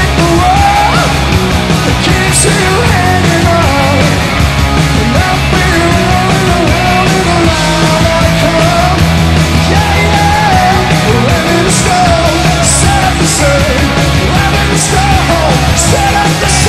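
Live punk rock band playing at full volume: a male singer over distorted electric guitar, electric bass and drums, with several cymbal hits in the last few seconds.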